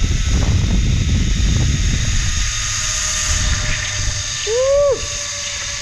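Zip-line ride: wind rushing over the microphone and the trolley's pulleys running along the steel cable with a thin steady whine; the rush is heaviest at first and eases after about two seconds. About four and a half seconds in comes a short rising-then-falling cry.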